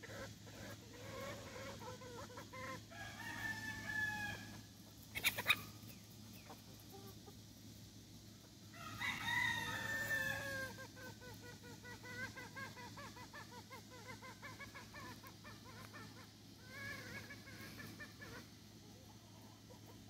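Gamefowl roosters crowing, several times, with a long crow about nine seconds in, among hens clucking. A few sharp knocks come about five seconds in, over a steady low hum.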